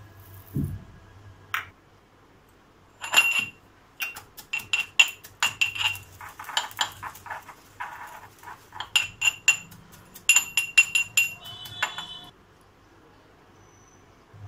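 Steel pestle pounding whole fennel and coriander seeds in a small steel mortar, giving quick runs of sharp, ringing metallic clinks that stop about twelve seconds in. Before the pounding there is a short pour of seeds into the mortar with a soft thud.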